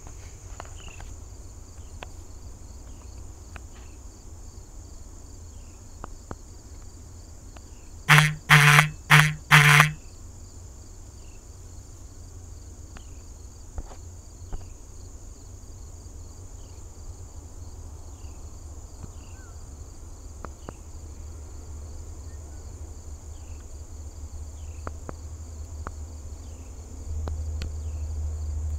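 A steady high trill of insects runs throughout, with a faint low rumble underneath. About eight seconds in, a phone vibrating for an incoming call gives four loud buzzes in quick succession over about two seconds.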